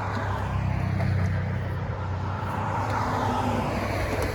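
Road traffic: a passing vehicle's noise swells and fades over a steady low hum.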